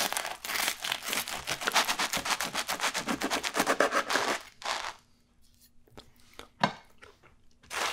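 A knife sawing through a crisp, oven-toasted sub roll, the crust crunching and crackling with each quick back-and-forth stroke. The sawing stops about four and a half seconds in, followed by a few faint scrapes and one sharp click near the end.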